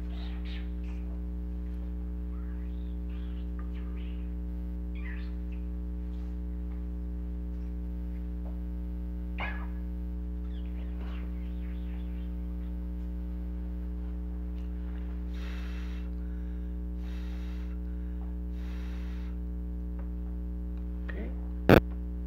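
Steady electrical mains hum with a stack of harmonics, under faint scattered ticks and handling noises from soldering work on a wire; a sharp click near the end is the loudest sound.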